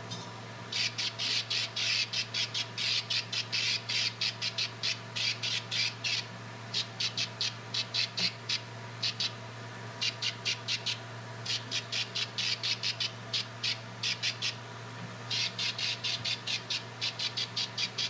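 Powder coat gun spraying in rapid hissing spurts, several a second, in runs of a few seconds with short pauses between, over a steady low hum.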